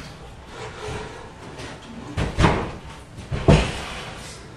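Quartz countertop slab being shifted onto wooden base cabinets: two heavy knocks about a second apart, the second the louder.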